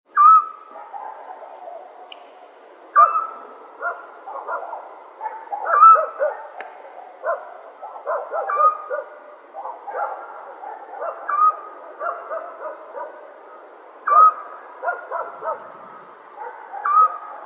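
Night chorus of animal calls in the countryside. One clear, pitched call repeats about every three seconds over many shorter, lower calls that overlap one another.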